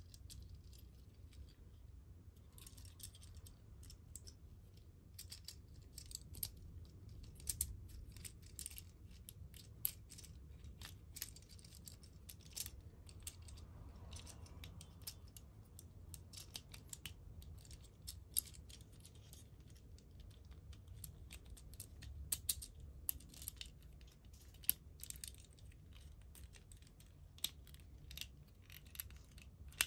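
Small plastic clicks and snaps, irregular and scattered throughout, as the jointed parts of a transforming toy ambulance robot are folded by hand into its vehicle form.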